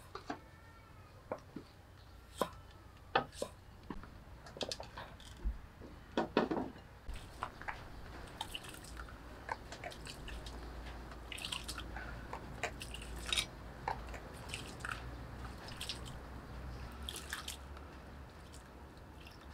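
A knife clicking sharply against a wooden chopping board as it slices jackfruit bulbs, then wet squishing and dripping as hands squeeze grated coconut in a bowl of water.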